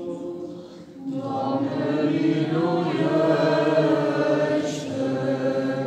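Church choir singing Romanian Orthodox liturgical chant in held, sustained notes. After a brief pause just before a second in, a new phrase swells and stays full.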